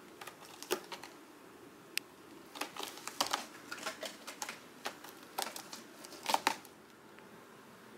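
Cat's claws scratching and catching on a sisal-rope scratching post: irregular bursts of scratchy clicks and rasps, dying away near the end.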